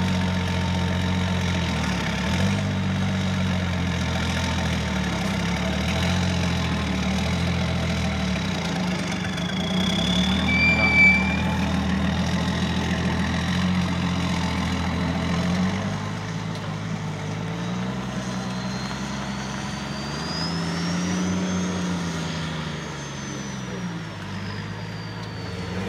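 Engine of an off-road truck trial prototype running at low revs as it crawls over dirt mounds, steady for about the first half, then quieter with its note dipping and rising as the throttle changes. A short high squeal about eleven seconds in.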